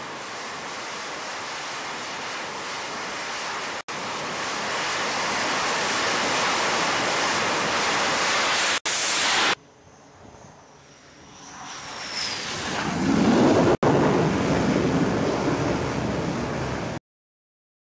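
F/A-18 Super Hornet jet engines running at high power on a carrier's catapult, a loud steady rush that builds for several seconds and breaks off abruptly. A quieter stretch follows with a falling high whine, then another loud jet rush.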